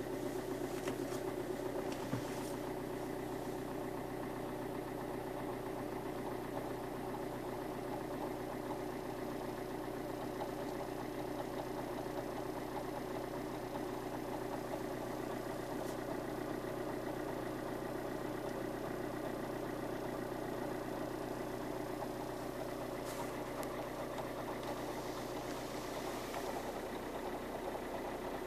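Alfa Romeo 159 JTDM diesel engine idling with a steady rattling, chattering noise, the clutch pedal released.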